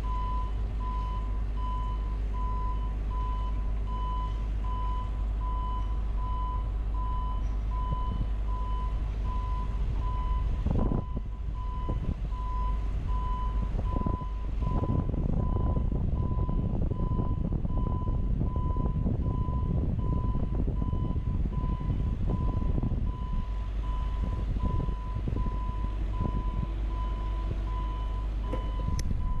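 JLG 150HAX boom lift's alarm beeping at a steady, even pace over the low running hum of the machine. From about eleven seconds in, a louder rushing noise joins.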